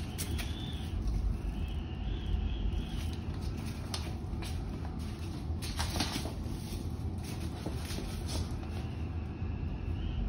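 Phone handling noise: a steady low rumble with scattered rustles and soft clicks, and a faint high wavering tone that comes and goes three times.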